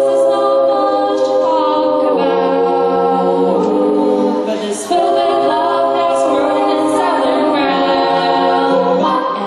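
A cappella vocal group of mixed male and female voices singing in close harmony through microphones and a PA. They hold long chords that shift every couple of seconds, with a short break about five seconds in.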